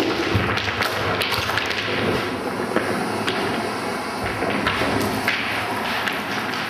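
A dense, irregular clatter of knocks, taps and thuds over a continuous noisy background, as of objects being struck during a live performance.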